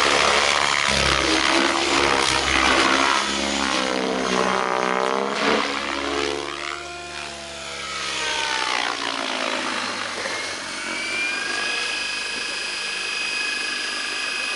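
RC helicopter flying 3D aerobatics: a loud pulsing rotor chop through the first few seconds, the pitch sweeping down and back up about halfway through, then a steady high whine as it settles into level flight near the end.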